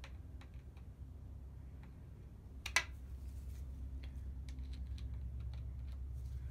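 Small metallic clicks and taps of a feeler gauge blade and screwdriver working against a Classic Mini rocker arm while the tappet clearance is adjusted, with one sharper click about three seconds in. A low steady hum runs underneath.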